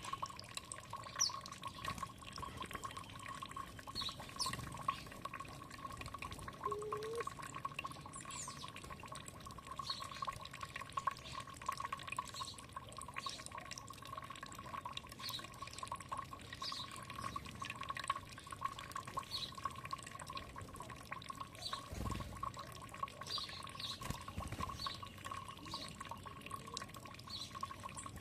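Water trickling and dripping steadily, with short high bird chirps scattered throughout.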